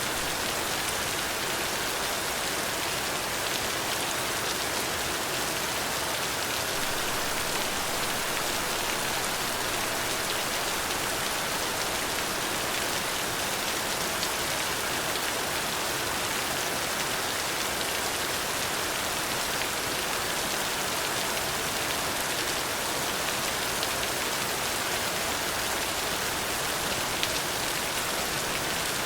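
Steady rain falling, an even hiss of many drops with a few faint separate drop ticks.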